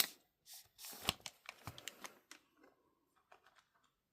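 Trading cards being handled and slid against each other: a few short, faint rustles and clicks, mostly in the first two seconds.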